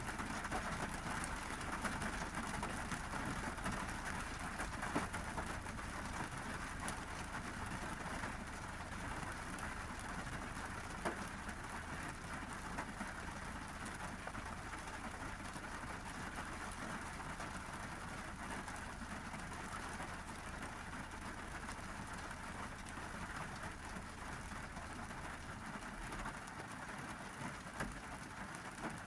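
Steady monsoon rain falling on a car, heard from inside the cabin, with a few heavier drops landing as single sharp ticks. A low steady hum underneath stops near the end.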